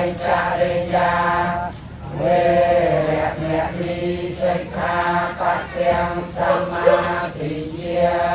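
A group of voices chanting in unison, Buddhist precept-taking recitation, in short even-pitched phrases with brief breaths between them.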